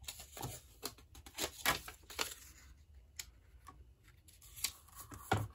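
Sticky note peeled off its pad and pressed onto paper: a run of faint, short rustles and light taps.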